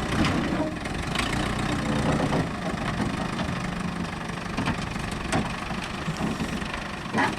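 An engine idling steadily, with a few short clanks over it.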